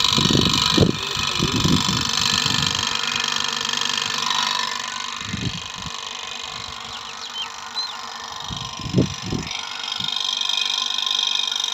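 Water pump set running steadily with a mechanical hum while pumping under good pressure. A few dull low thumps come in the first two seconds and again about nine seconds in.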